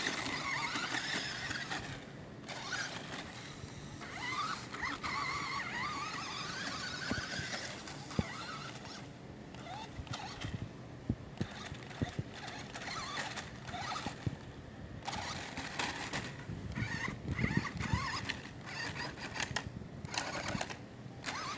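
Small electric RC off-road truck's motor and gearbox whining, the pitch rising and falling with the throttle as it drives and climbs, with occasional low thumps in the later part.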